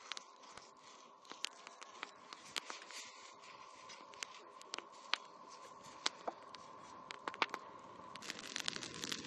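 Marmot fur crackling and sizzling as a hot old car spring is pressed and scraped along the carcass to singe off the hair: irregular sharp crackles over a faint steady hiss.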